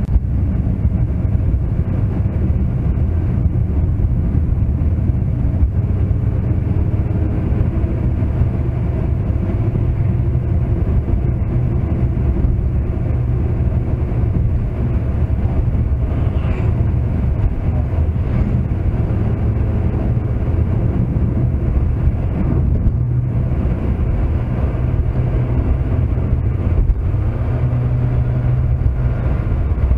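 Car cabin noise picked up by a dashboard camera while driving: a steady low road-and-engine rumble, with the engine hum shifting slightly in pitch a few times.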